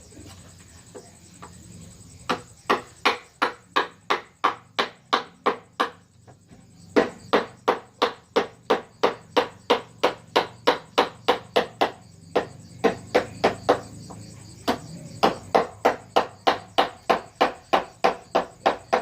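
Mallet tapping a carving chisel into wood in a steady run of sharp knocks, about three a second. It pauses briefly twice.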